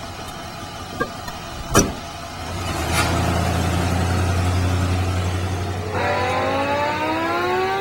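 Car sounds with two short knocks, one about a second in and a louder one just before two seconds. A steady low hum comes up after that. Music with gliding, rising tones begins near the end.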